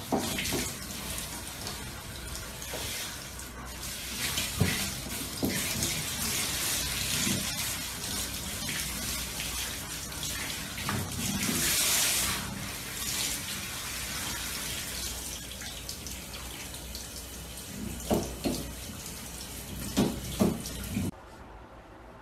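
Handheld shower head spraying water onto a dog's coat: a steady hiss of running water, with a few short knocks near the end. The spray stops abruptly about a second before the end.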